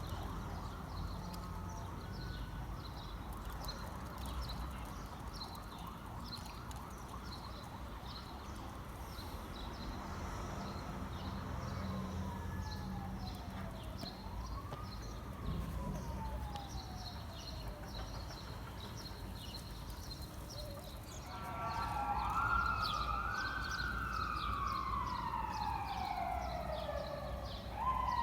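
Emergency-vehicle siren wailing in slow rising and falling sweeps, faint through the middle and much louder in the last quarter, over a steady low background rumble.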